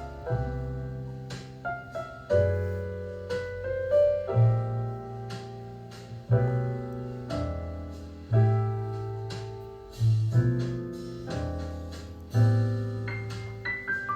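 Piano music: chords with low bass notes struck about every two seconds and left to ring and fade.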